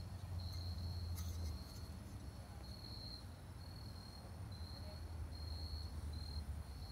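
Crickets chirping at one high pitch in short trills that repeat about every half second, over a low background rumble.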